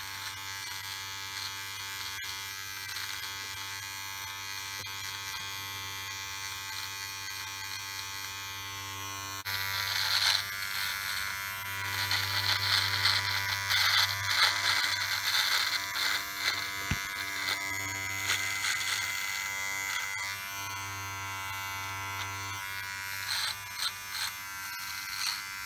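MANSCAPED Lawn Mower 3.0 battery trimmer buzzing steadily as it runs over beard hair. About ten seconds in it turns louder, with an uneven crackle as the blade cuts through the chin beard.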